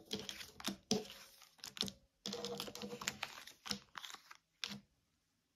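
Tarot cards being handled and laid out on a table: a string of irregular sharp clicks and taps with light rustling between them.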